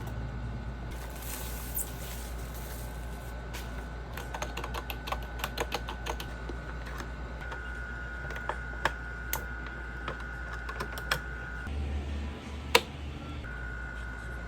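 Keys of a retro typewriter-style keyboard clicking as it is typed on, in an irregular run of sharp clicks, with a single louder click near the end. A rustle comes first, and a steady high whine sits underneath throughout.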